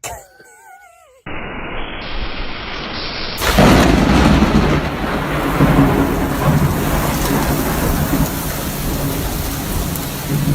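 Heavy rain with a deep thunder-like rumble: a steady rushing noise that starts about a second in, becomes much louder a couple of seconds later, and cuts off abruptly near the end. A brief wavering high-pitched cry comes just before it.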